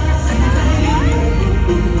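Live K-pop concert music heard from the audience: a male singer's voice over the band through the arena sound system, with heavy bass. The voice slides upward about a second in.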